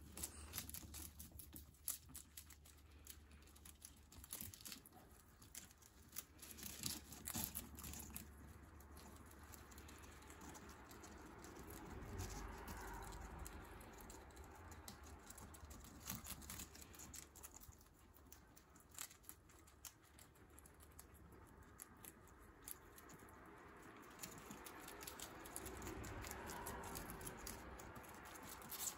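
Several guinea pigs chewing and tearing leafy greens: many small, irregular crunches and clicks of nibbling.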